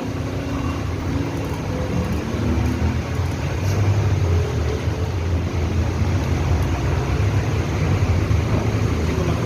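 Steady low rumble of a motor vehicle running, growing louder a couple of seconds in and holding.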